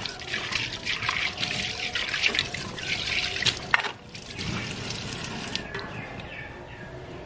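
Water running and splashing in a kitchen sink, with scattered clicks and knocks of wet dishes being set into a plastic dish-drying rack. The water noise falls away about three-quarters of the way through.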